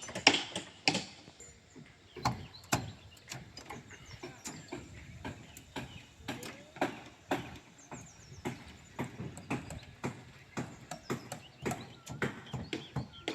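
Construction work: irregular sharp knocks and taps, at times a few a second.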